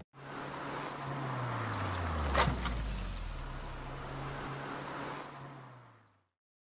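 Sound effect of a car driving past: a rushing noise that swells to a peak about two and a half seconds in, with the low engine note falling in pitch as it goes by, then fading away.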